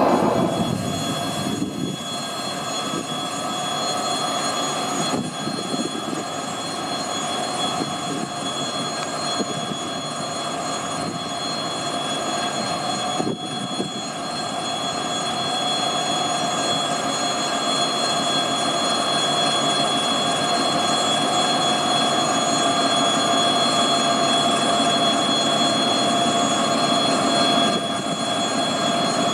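A two-section 2M62 diesel locomotive, with two-stroke 14D40 diesel engines, draws a passenger train slowly past with its engines running and a steady high whine. It grows louder over the second half as it nears.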